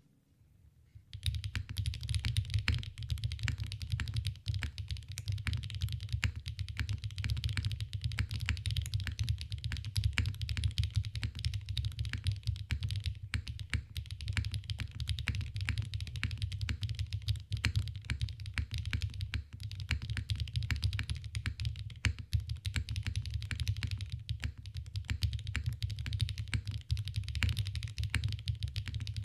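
Steady, fast typing on a Graystudio Space80 custom mechanical keyboard with HMX Xinhai switches: a dense stream of keystrokes with a deep low tone under each click, starting about a second in.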